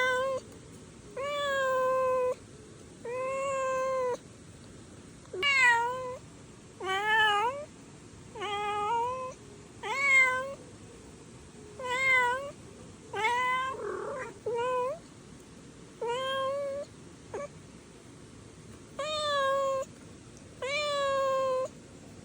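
A kitten meowing over and over, about fourteen high calls each roughly a second long with short gaps between; some are held level and others bend up or down in pitch.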